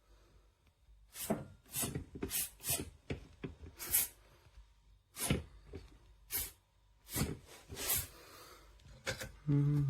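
Silicone hopper bellows on a coffee grinder being pressed by hand over and over: about a dozen short puffs of air and handling noises at irregular intervals. A brief low hum comes near the end.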